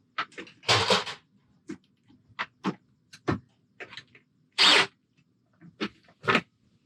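Handling noises while fitting caster wheels to a bucket dolly: scattered clicks and knocks, with two short scraping rustles, one about a second in and one near five seconds.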